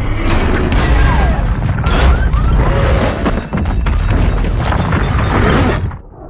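Film soundtrack of a nuclear blast: a heavy, deep explosion rumble with crashing debris, mixed with music. It drops off sharply near the end.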